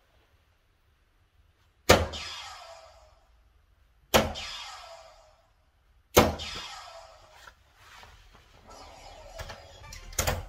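Three soft-tip darts thudding into an electronic dartboard, about two seconds apart, each hit followed by a tail that fades over about a second. Then clicks and rustling as the darts are pulled back out of the board, with a sharp click near the end.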